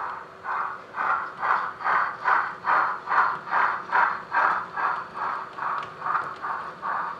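Steam locomotive chuffing in a steady, even rhythm of about two and a half beats a second, the sound of a tank engine working a freight train at a slow, constant speed.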